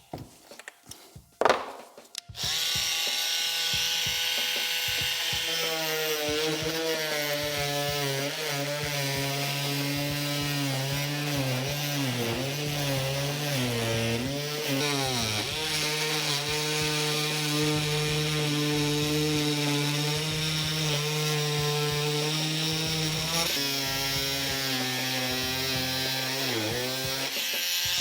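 Handheld electric power saw, its blade freshly changed, cutting a speaker hole in a car door panel. It starts after a few clicks about two seconds in and runs steadily, its pitch sagging under load around the middle and again just before it stops.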